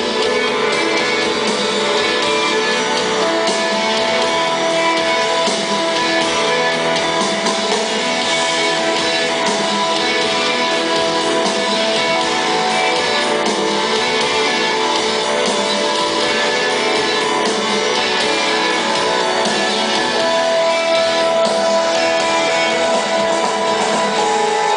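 Instrumental post-rock played by a band: layered guitars holding long, sustained melodic notes over a dense, steady wash of sound.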